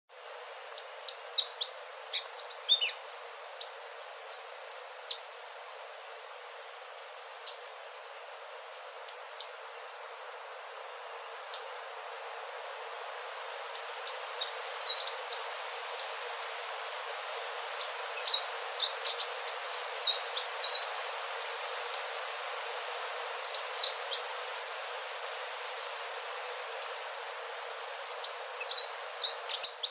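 Sikatan ninon (indigo flycatcher) singing: phrases of quick, very high, thin notes lasting a second or two, with pauses between them, over a steady hiss.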